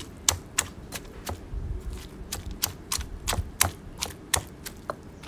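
Stone pestle pounding chillies, shallots and tomatoes in a stone mortar: a steady run of sharp knocks, about three a second, as stone strikes stone through the mash.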